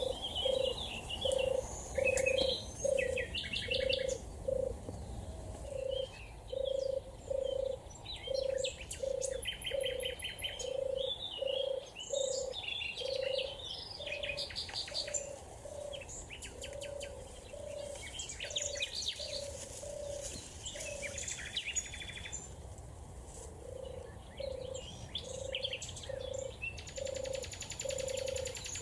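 European turtle dove purring: a soft rolling note repeated about three times every two seconds, with a short pause about three quarters of the way through. Other songbirds chirp and trill higher above it.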